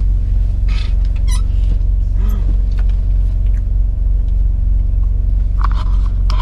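Semi truck's diesel engine idling: a steady, loud low rumble that holds even throughout, with a few faint ticks and a brief low hum on top.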